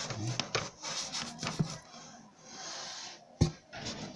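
Handling noise: rubbing and scraping with scattered clicks, and one sharp knock about three and a half seconds in.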